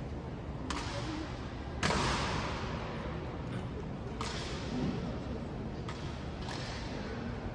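Honor guard rifle-and-boot drill: five sharp cracks a second or two apart, each ringing out in the marble hall's echo, the loudest about two seconds in.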